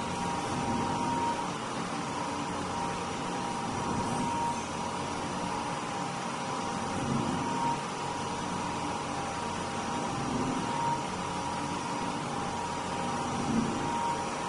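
Three-dimensional motion (3D swing) powder mixer running: a steady motor and drive hum with a high steady tone, and faint low swells every few seconds as the drum tumbles.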